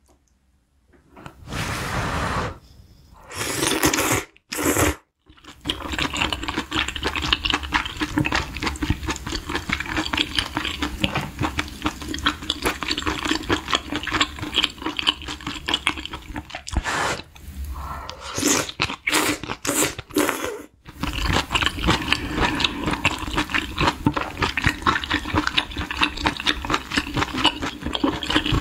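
A person slurping and chewing glass noodles and oyster mushrooms from a spicy beef-intestine hot pot: dense wet smacking and slurping, broken by a few short silent breaks.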